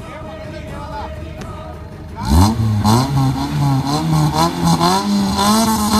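Modified Maruti Gypsy 4x4's engine revving hard under load as it climbs a steep dirt slope. The engine starts about two seconds in with a sharp rise in revs, then keeps running loud with the revs wavering up and down.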